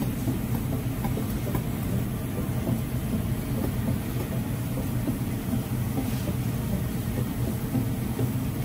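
A steady low rumble with no distinct strokes or tones.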